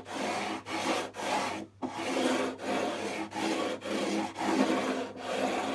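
A wooden 14-inch radius sanding block rubbed back and forth along a guitar's stainless steel frets, a quick rasping stroke about twice a second: fret leveling, taking the high frets down.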